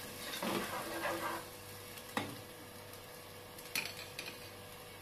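Onion-tomato masala frying in a nonstick pot, stirred and scraped with a slotted spoon for about the first second and a half, then a few sharp knocks of the spoon against the pot around two and four seconds in, over a faint steady sizzle.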